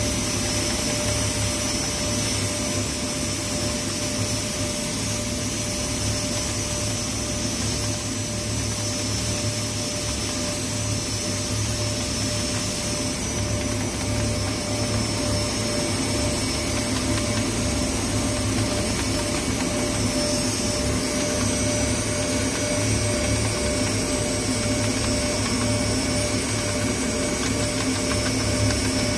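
A powder grinding machine running steadily, a loud even drone with a constant hum and a held whine. Under it, the gritty scraping of a metal sieve being shaken over concrete as fine powder sifts through.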